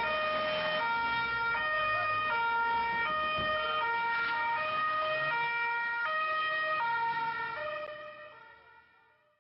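Police car's two-tone siren, switching back and forth between a high and a low pitch about every three-quarters of a second, fading away over the last two seconds.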